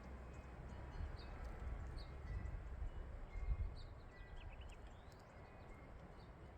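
Outdoor ambience: a low, uneven rumble with a few faint, short bird chirps and, about halfway through, a quick run of high bird notes.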